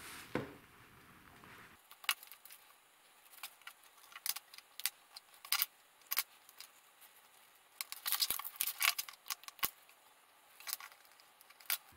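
Small sharp clicks and ticks of hand tools and small plastic parts being handled on a workbench: combination pliers, a crimping tool and insulated crimp connectors on thin wires. A quick run of clicks comes about eight seconds in.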